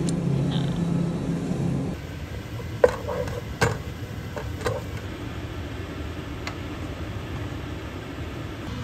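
A steady low hum for about two seconds. Then a wooden spoon stirring in a metal pot, with a few sharp knocks of the spoon against the pot, the first the loudest, over a quiet steady background noise.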